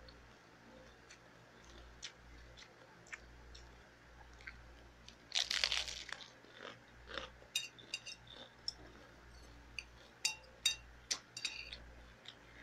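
A person biting into soft food and chewing close to the microphone: one loud bite about five seconds in, then a run of short sharp chewing clicks and crunches.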